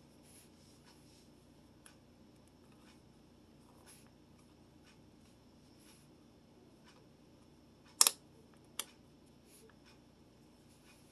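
Quiet room tone with scattered faint ticks; about eight seconds in, a sharp double click, then a softer click under a second later.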